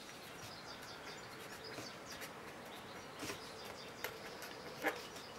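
Felt-tip marker writing on paper: a run of faint, short scratching strokes as letters are drawn.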